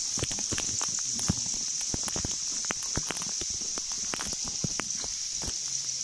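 Water dripping and plinking irregularly onto the cave river, a few sharp drops a second, over a steady high hiss.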